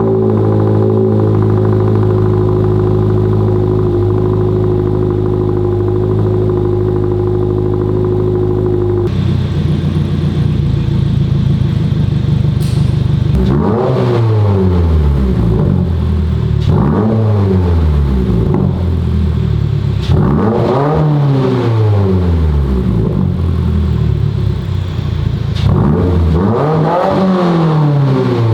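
2022 Subaru WRX's turbocharged 2.4-litre flat-four, breathing through a Remark 4-inch muffler-delete axle-back exhaust, holding a steady high idle just after a cold start. About nine seconds in it settles to a lower idle, and then it is revved four times, each rev rising and falling quickly.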